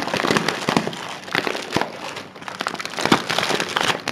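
Plastic courier mailer and the clear plastic bag inside it crinkling and crackling in a dense, irregular run as hands pull a packet of wool yarn out of the mailer.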